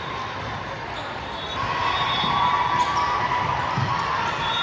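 Sounds of an indoor volleyball rally: the ball being struck and bouncing on the court over the voices of the crowd and players, with the noise growing louder about one and a half seconds in.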